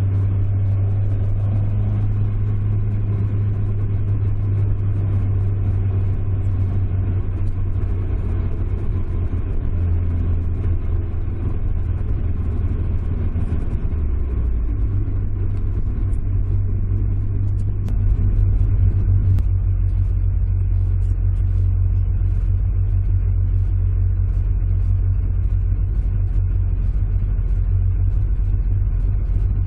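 Toyota 5-valve 4A-G inline-four engine of an AE86 running at low, steady revs, heard from inside the cabin. The engine note shifts a few times and gets a little louder about 18 seconds in.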